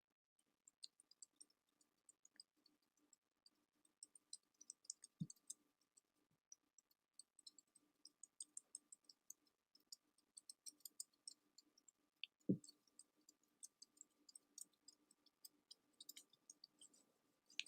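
Faint crackling: sparse, irregular tiny high-pitched clicks and pops, with two soft thumps about five and twelve seconds in.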